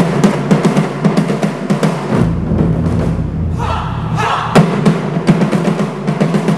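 Japanese taiko drum ensemble playing live: a fast run of stick strikes on the drums, with heavy accented hits at the start and about four and a half seconds in. A shout from the drummers comes just before the second accent.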